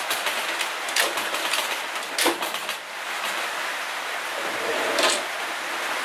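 Aluminium fridge slide moving along its telescopic ball-bearing drawer runners, with a running metallic rolling noise and several sharp metal clacks, the loudest about two seconds in and near the end.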